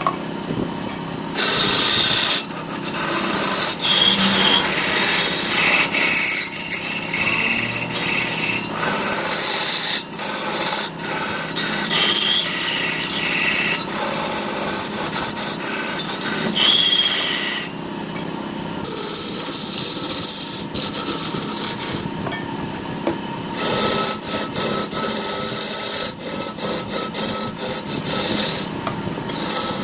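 Turning tool cutting and scraping a spinning redwood blank on a large wood lathe, in long passes of several seconds with brief breaks between them.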